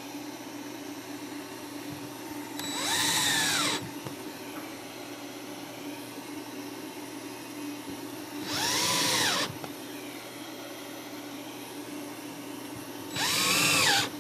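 Cordless drill run in three short bursts of about a second each, its motor pitch rising and falling each time, while screwing a UHMW plastic sheet down to the router's wooden bed.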